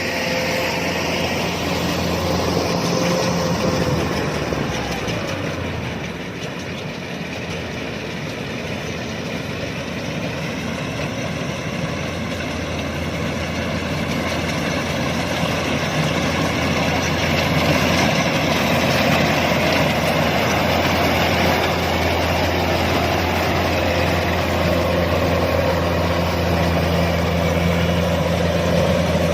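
Kubota DC-105X rice combine harvester running with a steady diesel engine drone and machinery noise. It eases off slightly about six seconds in, then builds back up.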